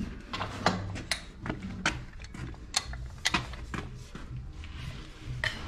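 Irregular sharp metallic clicks and knocks, about a dozen, from a socket wrench being fitted and worked on a tractor engine's oil filter to loosen it.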